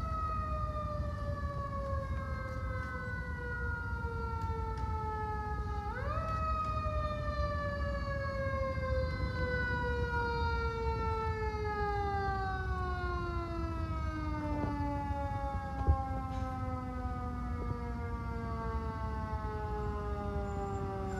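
Fire ladder truck's siren sounding a single wailing tone that slowly falls in pitch, winds quickly back up about six seconds in, then glides slowly down again. A low rumble runs underneath, and a single sharp click comes near the end.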